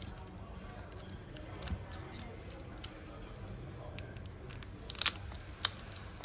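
Small clicks and scraping from prying a glued-in smartphone battery out of its seat. A few sharper clicks come about five seconds in.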